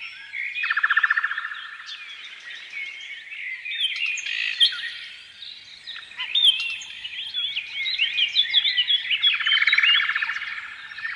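A chorus of many small birds chirping over one another in quick, overlapping calls, with a buzzy trill about a second in and again near the end.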